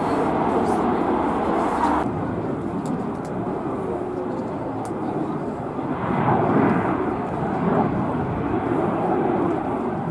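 Lockheed Martin F-35B's F135 jet engine and shaft-driven lift fan running in slow, jet-borne STOVL flight: a loud, continuous jet rumble. The high hiss drops off abruptly about two seconds in, and the sound swells again around six seconds.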